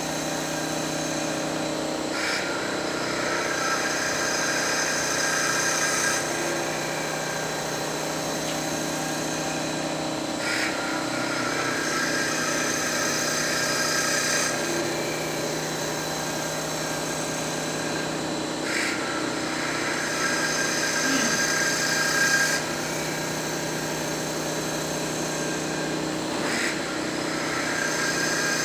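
Mustang MT5025 mini CNC wood lathe running with a steady motor hum, its cutting tool scraping into the spinning wood in repeated passes. The passes come about every eight seconds and last about four seconds each, four in all.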